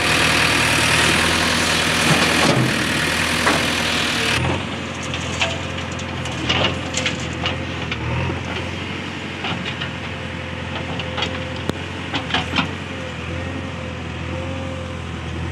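JCB 3DX backhoe loader's diesel engine running steadily under hydraulic load while the backhoe digs and loads soil. A loud rushing noise covers the first four seconds or so and cuts off abruptly. Scattered sharp knocks and scrapes follow as the bucket works through stony earth.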